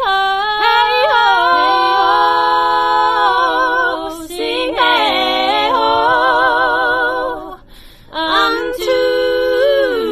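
A woman's solo singing voice, unaccompanied, drawing out long held notes with vibrato. She breaks off twice for a breath, about four seconds in and about eight seconds in.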